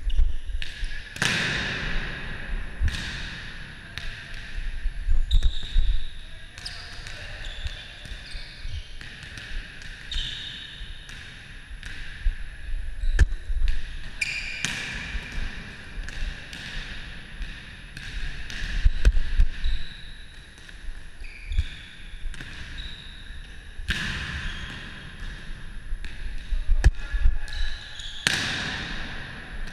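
Volleyball rally in an echoing sports hall: the ball slaps off hands and forearms on sets, passes and hits, and bounces on the court floor. Short high squeaks, likely sneakers on the court, come between the hits, along with a few rushes of noise.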